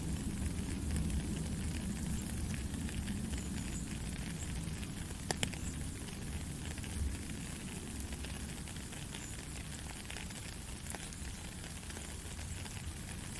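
Heavy rain falling steadily, an even hiss with a deep low rumble beneath and scattered sharp drop ticks; a couple of louder drop clicks about five seconds in.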